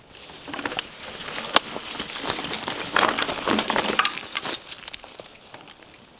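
Mountain bike tyres rolling over dry leaves and loose stones on a rocky trail: a steady crunching and crackling with many sharp clicks and rattles, loudest in the middle and fading near the end.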